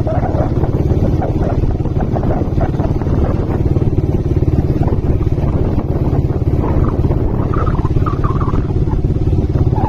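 Motorcycle riding at a steady pace: a constant engine and road drone mixed with low wind rumble on the microphone.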